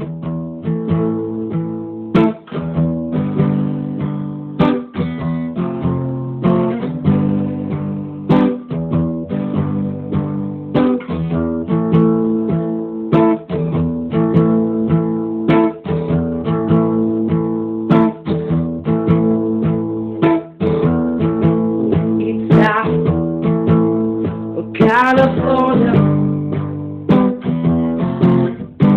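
Acoustic guitar strummed in a steady rhythm, playing the chords of a reggae song.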